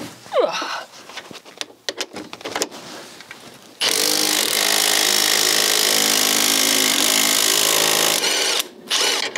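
Power tool, an impact wrench, hammering steadily on a long 15 mm engine mount bolt for about four seconds, starting about four seconds in and stopping abruptly. The bolt does not come undone. Light clicks of tool handling come before it.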